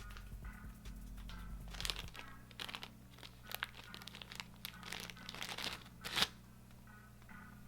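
Packaging crinkling and rustling as a boxed microphone and its accessories are handled, in a run of short irregular bursts with one sharp crackle about six seconds in.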